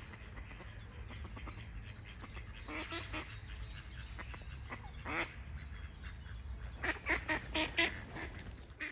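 Mallard ducks quacking: a few calls around three and five seconds in, then a quick run of about five louder quacks near the end.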